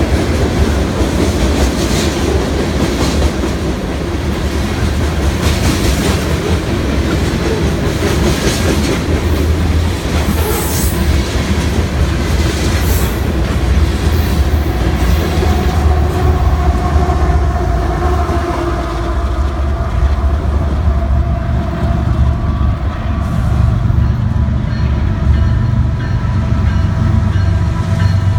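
Freight cars rolling close by, their wheels clattering rapidly over the rail joints. In the second half the clatter gives way to the low rumble and steady whine of approaching diesel freight locomotives.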